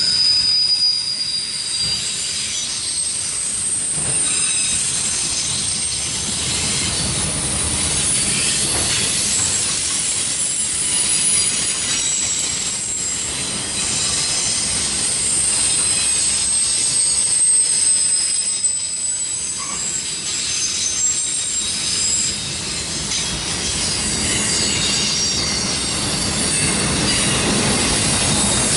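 Loaded autorack freight cars of a CSX train rolling steadily past, wheels running on the rail, with thin high-pitched wheel squeal coming and going over the top.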